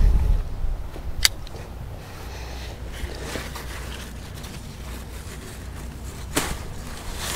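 Comfrey leaves rustling as they are grabbed and pulled by hand, with two sharp snaps, one about a second in and one near the end. A low rumble at the start dies away after about a second.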